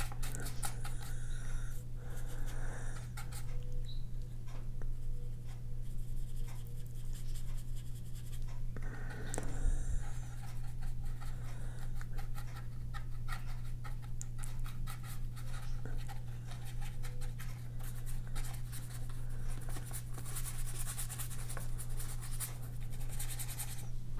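Paintbrush scratching and dabbing acrylic gouache onto sketchbook paper in many short strokes, over a steady low hum.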